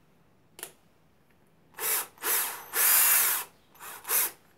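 Parkside 12 V cordless drill/driver running in five short trigger bursts, the motor and chuck spinning up and winding down each time, the third burst the longest. A single click comes about half a second in, before the first burst.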